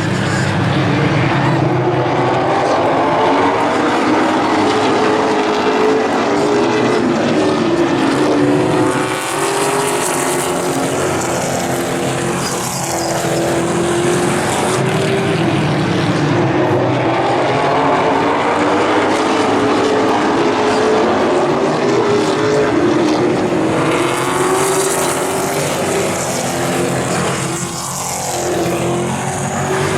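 Pack of Pro Late Model stock cars racing on an asphalt oval, their V8 engines running hard at steady high revs, with the pitch repeatedly rising and falling as the cars lap and pass.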